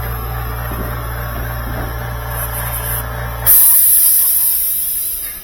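Aerosol can of dry lubricant spraying onto a washer motor's centrifugal switch: a faint short spurt, then about three and a half seconds in a loud hiss that weakens over under two seconds as the nearly empty can runs out. A steady low hum runs underneath until the loud spray starts.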